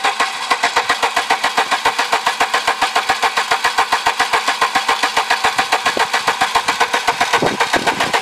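Volvo 740 petrol engine being cranked by its starter motor on a cold start after six years of sitting: a steady, loud beat of about eight pulses a second that does not speed up into running. It stops near the end.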